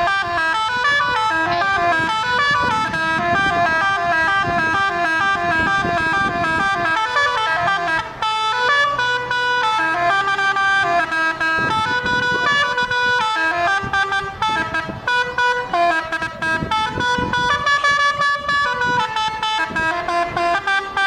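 Multi-tone 'telolet' bus horn playing a fast, almost unbroken tune of short notes stepping up and down, with a low rumble underneath at times.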